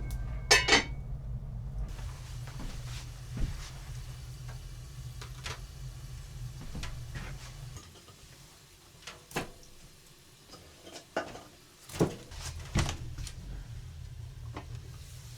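Scattered light knocks and clinks, like things being handled, over a low steady rumble. The rumble drops away about eight seconds in and comes back near the end.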